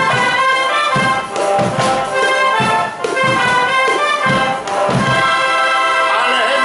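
Schalmei band (East German shawm band) playing in full, bright chords over a regular bass-drum beat; the beat stops about five seconds in and the band holds a long chord.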